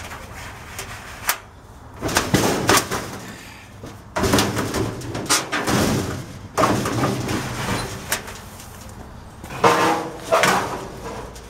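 Frigidaire dryer's sheet-metal drum being lifted and slid out of the cabinet: repeated bursts of metal scraping and knocking as it shifts and rubs against the cabinet.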